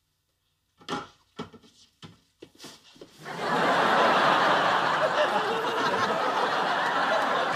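Studio audience laughing, breaking out about three seconds in and carrying on loudly, after a few short, separate sounds.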